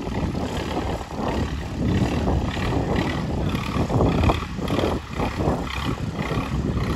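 Long-tail river boat engines running, a loud drone that swells and falls as the boats pass.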